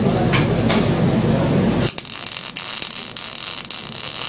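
MIG welding arc on steel horseshoes, a steady hiss with irregular crackling that starts abruptly about two seconds in, after a low rumble.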